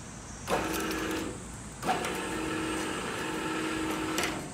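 The block clamp machine's electric motor and reducer run, winding the steel wire to lift a clamped row of four hollow concrete blocks. It hums steadily for about a second, stops, then starts again with a jolt and runs for about two seconds before cutting off.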